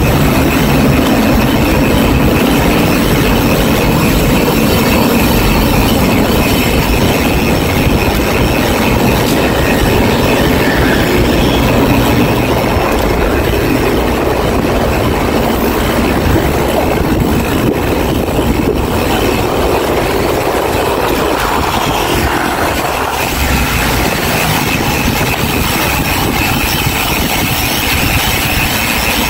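Loud, steady rumbling noise of wind buffeting the microphone, mixed with passing street traffic.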